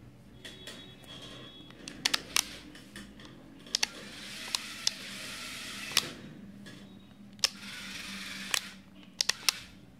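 Small electric gear motors of a homemade four-wheel-drive robot car whirring as it drives, in two spells of a couple of seconds each. Sharp clicks are scattered through, several in quick succession near the end.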